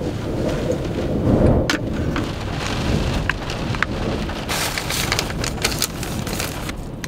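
Rain on the roof of an SUV, heard from inside the cabin, with wind buffeting the car as a steady low rumble. A fork stirring couscous in a glass bowl gives a few sharp clicks and scrapes, busiest about two-thirds of the way through.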